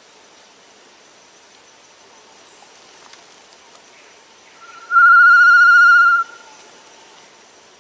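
One loud, quavering whistle at a steady pitch, about a second and a half long, starting and stopping abruptly: a macuco (solitary tinamou) call.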